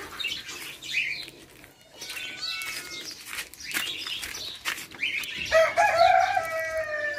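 Backyard chickens: short chirps and clucks amid rustling and knocks, then a rooster crows one long call starting about five and a half seconds in.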